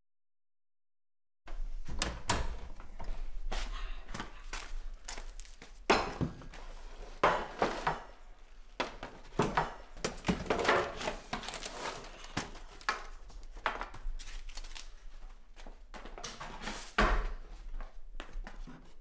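Kitchen handling sounds: a run of knocks, clatters and thunks as things are taken off a shelf and cupboard or appliance doors are worked, over a low steady hum. It starts after about a second and a half of silence.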